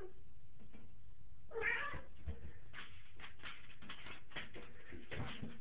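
A domestic cat meows once, about a second and a half in, followed by a run of quick scratchy clicks as it paws in the bathtub.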